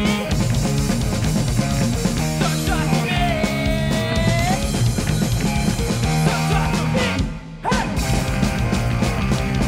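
Punk band playing live: vocals over electric guitars and drums. The band stops for a split second about seven seconds in, then crashes back in.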